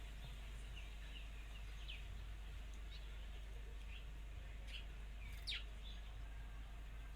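Birds chirping: scattered short high calls and a few quick notes that sweep sharply downward, the loudest about five and a half seconds in, over a steady low hum.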